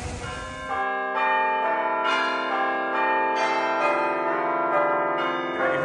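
A bell-like chime sequence: several bell notes struck one after another, ringing on and overlapping, over a clean background. It starts about a second in, after a moment of street noise, and stops just before the end. It is a jingle edited in to mark a scene change.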